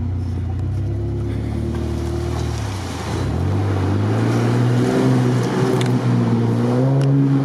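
Off-road vehicle engine pulling along a muddy track, running steadily at first. A little under three seconds in the revs drop briefly, then climb slowly as it picks up speed.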